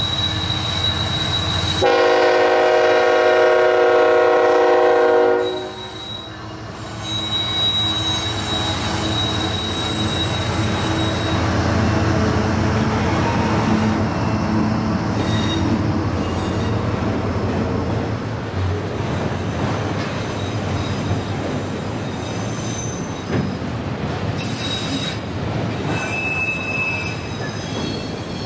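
Freight train passing close: the lead CSX GE diesel locomotive sounds one long, loud horn blast about two seconds in, then the locomotives run past and the autorack cars roll by with a steady rumble. Wheels squeal on the curve, with sharper high screeches near the end.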